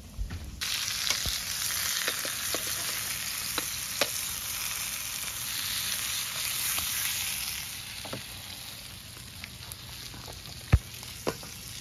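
A veggie burger sizzling in a hot frying pan. The sizzle starts suddenly about half a second in and eases off after about eight seconds. A few light clicks and one sharp knock near the end sound over it, like a utensil against the pan.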